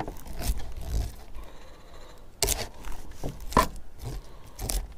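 A metal spoon scraping scales off a sucker fish held on a ridged scaling board, in irregular strokes, with the sharpest scrapes about halfway through.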